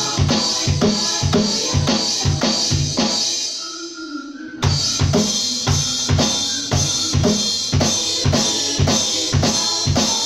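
Electronic drum kit played in a steady beat of kick and snare over TV theme music. The drumming drops out for about a second near four seconds in, leaving the music alone, then comes back in abruptly.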